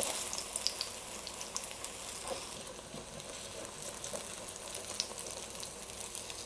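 Okonomiyaki batter sizzling in hot oil in an electric wok, a steady hiss with small scattered crackles. A slotted spatula pushes and scrapes softly at the edges of the pancake to round it.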